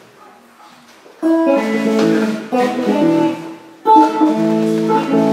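Clean electric guitar strumming three chords about a second and a half apart, each left to ring; the first comes in about a second in, after a quiet start.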